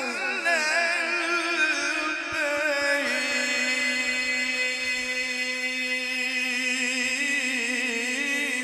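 A male qari's voice, amplified through a microphone, sustaining one long melismatic note of Quran recitation (tilawat). It wavers in quick ornamental turns for the first few seconds, then settles into one long steady held tone about three seconds in.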